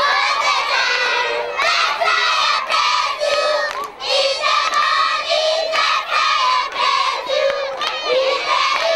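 A crowd of schoolchildren shouting and chanting excitedly together in short repeated phrases.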